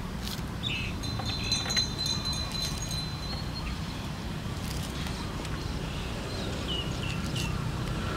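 An orange's rind being torn and peeled by hand in a few short crackles, over a steady low rumble. A high, steady bird whistle sounds about a second in and lasts about three seconds, and three short falling chirps come near the end.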